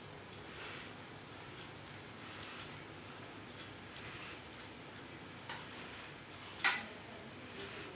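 A cricket chirping in a steady, fast, even pulse of a high tone, with one loud sharp click a little over a second before the end.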